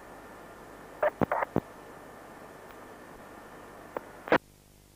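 Police radio scanner hissing on an open channel between transmissions, with a few short clicks a little after a second in. Near the end a louder click comes as the transmission drops, and the hiss falls to a quieter level.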